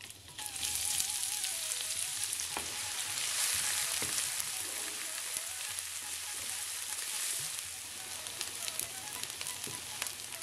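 Chopped onions hitting hot oil with fennel seeds and curry leaves, starting to sizzle about half a second in and then frying with a steady, loud sizzle as they are stirred with a wooden spoon, with occasional sharp clicks and pops.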